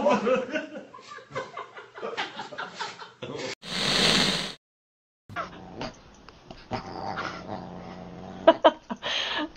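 A dog and a cat scuffling, with short, irregular dog sounds. About four seconds in, a whooshing transition effect cuts across, followed by a brief gap.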